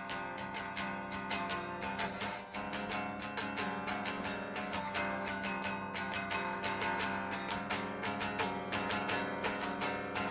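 Guitar strummed in a quick, steady rhythm of several strokes a second, with chords ringing between the strokes.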